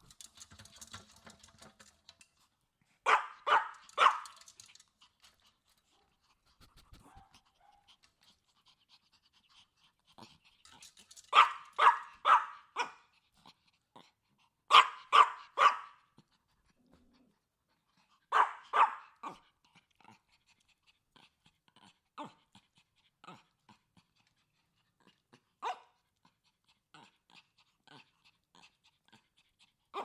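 A Chihuahua barking in bursts of two to four quick barks, with a few quieter single barks in the second half and faint licking sounds in between.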